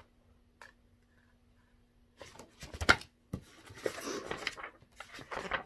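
Pages of a picture book being handled and turned: paper rustling and flapping with a few sharp clicks, starting about two seconds in after a near-quiet stretch with a faint steady hum.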